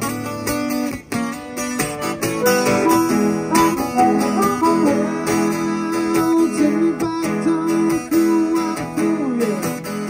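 Acoustic guitar strummed, with a harmonica played into a microphone over it; the harmonica's held notes bend up and down in pitch.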